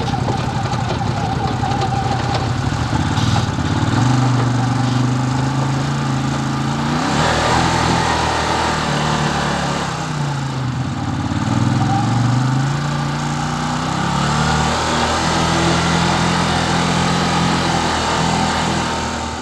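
Side-by-side UTV engine running while driving, its pitch climbing and dropping several times as the throttle opens and eases off, over a steady rushing noise.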